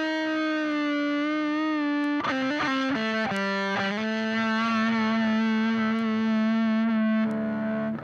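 Electric guitar, a Reverend Sensei played through the SAE Effects Beldam pedal into a Frenzel Bassman amp, sounding thick and fuzz-distorted. It holds a long sustained note with slight bends, plays a quick run of short notes about two seconds in, then holds another long note.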